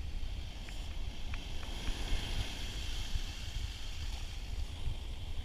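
Wind buffeting the microphone over the hiss of ocean surf washing in, the wash swelling about two seconds in and easing off.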